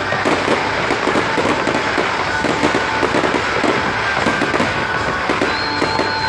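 Fireworks display: aerial shells bursting in a dense, rapid run of sharp cracks and bangs.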